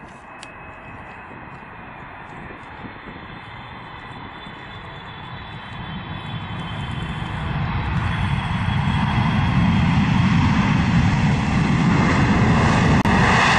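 Boeing 777 jet engines during landing and rollout on the runway: a steady rushing engine sound that grows louder over several seconds from about halfway through, then holds loud and steady to the end.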